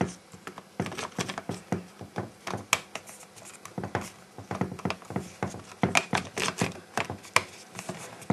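Irregular clicks and knocks of a Panasonic Toughbook CF-U1 handheld's battery cover being fumbled into place with one hand, taking several tries before it seats.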